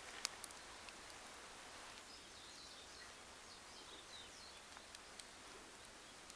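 Faint wood fire crackling, with a few sharp pops in the first second. Midway, a bird chirps a quick run of short notes.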